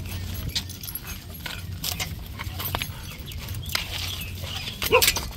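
Clicking and jingling of a dog's leash and collar hardware, with a short high whine from a dog about five seconds in.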